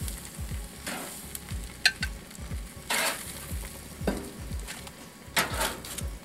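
Food sizzling on a hot gas grill, with several sharp metallic clicks and scrapes as metal tongs lift grilled chicken and foil packets off the grates.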